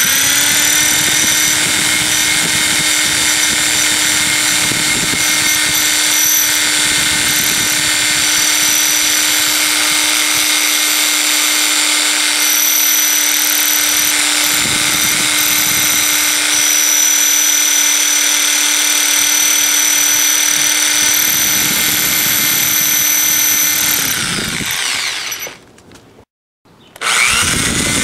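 Electric drill running at a steady pitch, its twist bit grinding slowly into the edge of a cement board. Near the end the motor winds down and stops, then starts up again at full speed just before the close.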